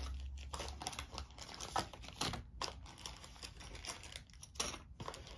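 Scattered light clicks and taps of cardboard game components and a paper booklet being handled on a wooden tabletop, with a couple of louder taps about two seconds in and near the end.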